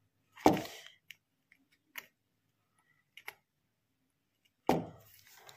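Soldering iron tip and fingers working an LED bulb driver circuit board while an IC is soldered on: a few sharp, scattered ticks, with two louder, longer handling sounds, about half a second in and near the end.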